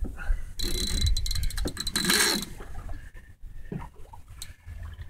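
Spinning reel's drag buzzing as a rapid stream of clicks with a high whine for about two seconds, starting about half a second in, as a hooked, hard-pulling fish takes line. A low rumble lies under it.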